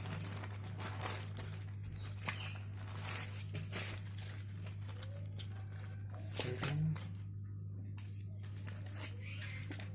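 Packaging being handled and opened: irregular crinkling, rustling and tearing, with a louder bout of handling a little past the middle, over a steady low electrical hum.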